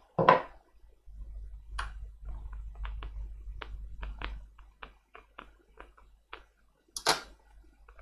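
Hands working on the opened tablet's parts: a scatter of small sharp clicks and taps, with low handling rumble through the first half and two louder crackling scrapes, one at the start and one about seven seconds in.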